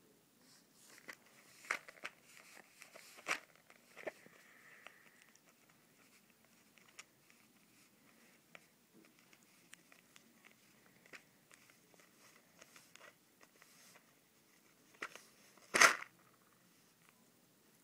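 Pomeranian puppy crunching dry kibble and pawing at a paper plate: scattered sharp crunches and clicks, with one louder snap near the end.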